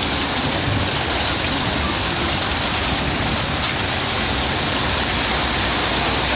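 Steady, unbroken rushing of water in a street flood.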